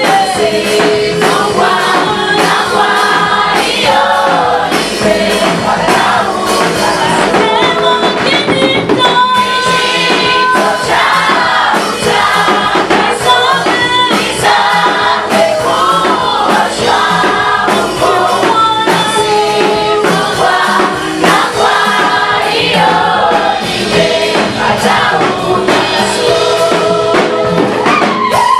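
A choir singing a gospel song in several voices over instrumental accompaniment.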